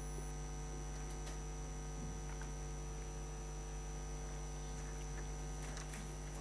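Steady electrical mains hum, with a faint high whine over it and a few faint ticks.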